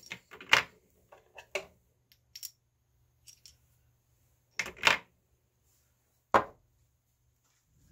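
Loaded cartridges and a clear plastic ammo box handled on a wooden workbench: scattered light clicks, then sharper knocks, two a little under five seconds in and one about six and a half seconds in.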